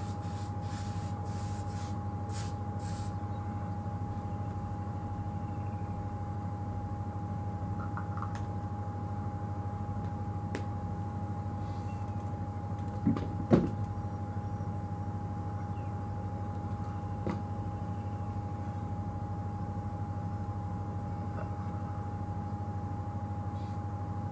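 Steady mechanical hum with a constant high-pitched tone underneath, and a brief knock about thirteen seconds in.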